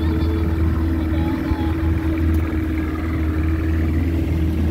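Small fishing boat's outboard motor running at steady speed, a constant low drone with a steady hum above it, along with the rush of water and wind as the boat moves.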